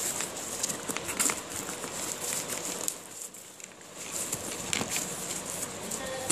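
Cardboard shipping box wrapped in clear plastic film being handled and turned over: irregular crinkling and crackling of the plastic, with scrapes and small knocks of the cardboard.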